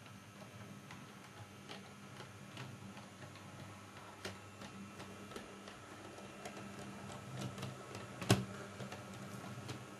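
Model train running along the layout's track: a low, steady motor hum with scattered light clicks of the wheels over rail joints and points, and one louder click about eight seconds in.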